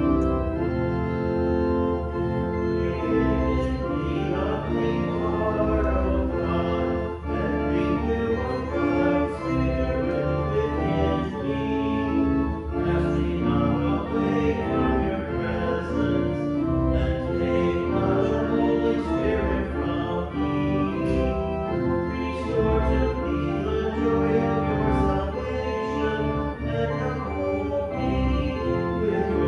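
Church pipe organ playing a slow piece of held, changing chords.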